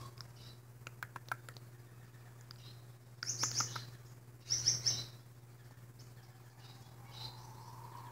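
Blue-naped mousebird chattering: a few quick clicks about a second in, then two loud, high chattering bursts a little past the middle, and a fainter call near the end.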